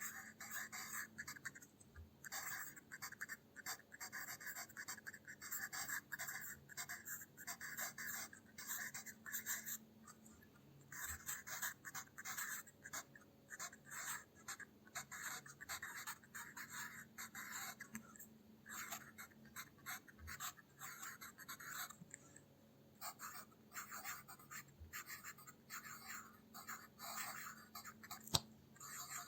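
Pencil graphite scratching across paper in calligraphy strokes, short strokes in quick runs with brief pauses. A single sharp click near the end.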